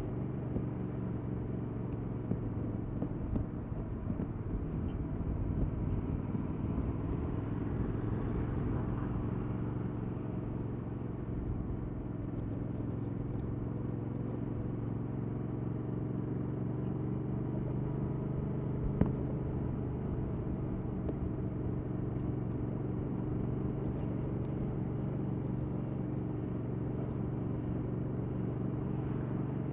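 Stock 2021 Yamaha MT-07's 689 cc parallel-twin engine running at a steady, nearly constant speed while the motorcycle is ridden, with a low rumble beneath. One sharp click stands out about two-thirds of the way through.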